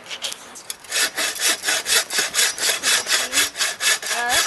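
Hand saw cutting through wood, starting about a second in with quick, regular back-and-forth strokes, about four a second. The blade is well used, which the owner says is getting dull.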